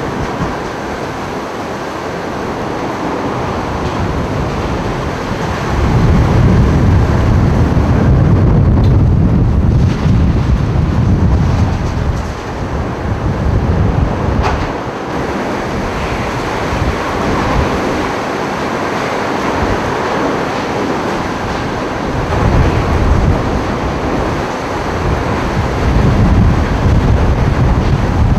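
Hurricane wind and driving rain blowing steadily, with gusts buffeting the microphone in heavy low rumbles, strongest a few seconds in and again near the end.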